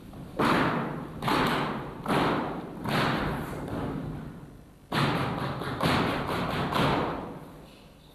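Seven heavy thuds, each dying away over about half a second: four evenly spaced about a second apart, a pause of about a second, then three more.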